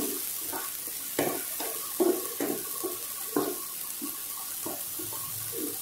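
Spatula stirring chopped onions and green chillies frying in oil in a non-stick kadhai: quick, irregular scraping strokes, about three a second, over a soft sizzle. The onions are being fried until light pink.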